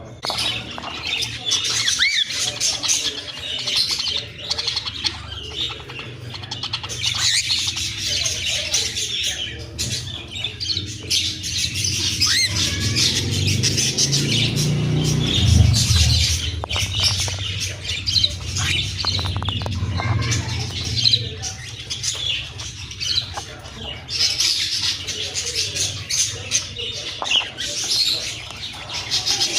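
Pet parrots chirping, chattering and squawking continuously, with many short rising and falling calls. A low rumble underneath swells about halfway through and then fades.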